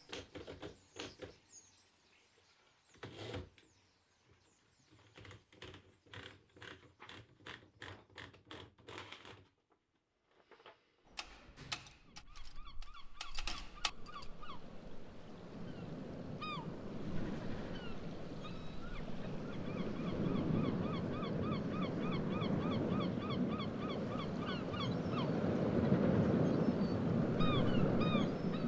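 Typewriter keys striking one at a time, a single clack every second or so. After a short silence come wind and water on a beach, growing louder, with birds giving many short repeated calls through the second half.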